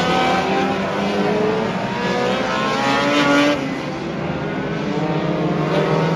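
Several figure-8 race cars' engines running at once as the cars race around the track, their engine notes rising and falling as they accelerate and pass. The sound is loudest about three and a half seconds in, then eases.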